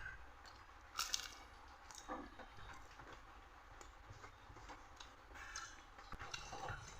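A person chewing a meal of rice and dal: faint, irregular wet mouth sounds and small crunches, with one sharper smack about a second in.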